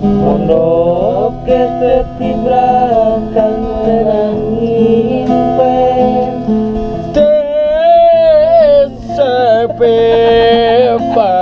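A man singing a slow song in Sundanese, stretching the syllables into long, wavering held notes, over instrumental backing with plucked strings.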